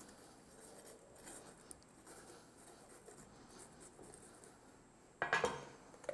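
Chef's knife cutting around the top of a yellow bell pepper on a wooden board, faint slicing and scraping. About five seconds in comes one brief, much louder crunching clatter.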